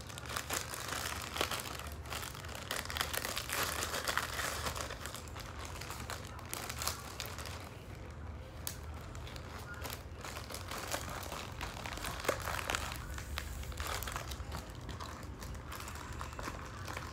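Clear plastic bag crinkling and rustling, with many small crackles, as it is handled and squeezed around a lump of white slime.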